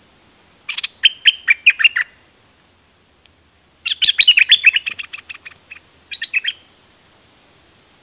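Bulbul (nok dok taeng) singing three bursts of quick chattering notes, the middle burst the longest.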